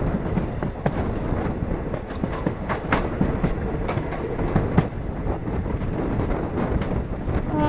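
Passenger express train running along the track, heard from on board: a steady rumble of wheels on rail with irregular sharp clicks of the wheels over rail joints.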